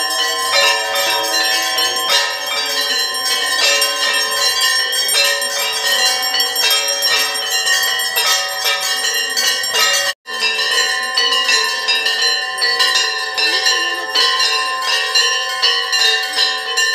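Many hanging temple bells rung together and over and over by devotees during aarti, a dense continuous clanging of overlapping tones. The sound cuts out for an instant about ten seconds in.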